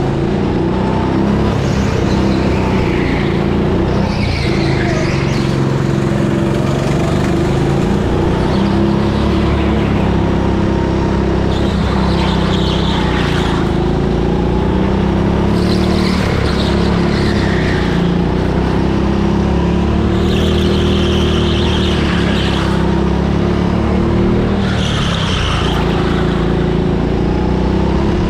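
Go-kart heard from onboard while lapping a track, its motor running continuously with the pitch rising and falling as the throttle comes on and off. Short bursts of tyre squeal come through the corners several times.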